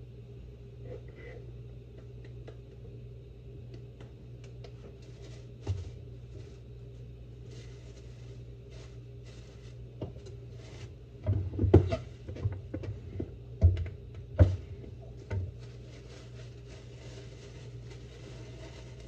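Scattered knocks and thumps of objects being handled, with one about six seconds in and a burst of several sharp ones about two-thirds through, over a steady low hum.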